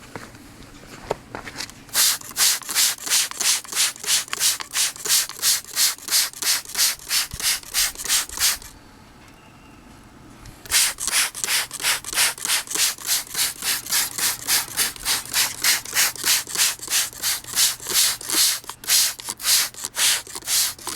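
Rapid, rhythmic hissing strokes, about four a second, made by hand while the dehumidifier's coils are cleaned. They stop for about two seconds partway through, then resume.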